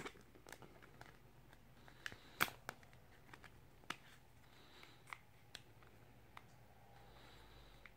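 Faint, scattered clicks and taps of a Samsung Galaxy S7 being pressed into and handled in a Spigen Neo Hybrid case, a TPU shell with a hard plastic bumper. The sharpest click comes about two and a half seconds in.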